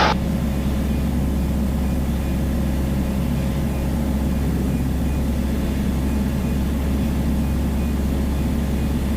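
Piper Dakota's single piston engine running steadily, a constant drone heard from inside the cockpit.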